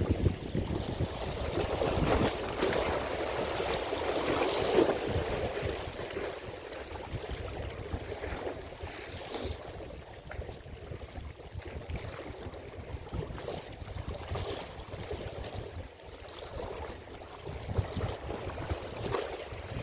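Strong wind buffeting the microphone over water sloshing and lapping, surging louder in the first few seconds; a single sharp click about nine seconds in.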